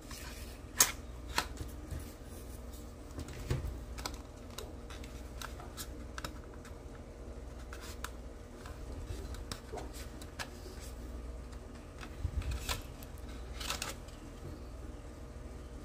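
Plastic scale model car parts clicking and tapping as they are handled and test-fitted: body shell, chassis and interior tub knocking against each other and against the hands. The clicks are scattered, with a sharp one about a second in and a small cluster near the end.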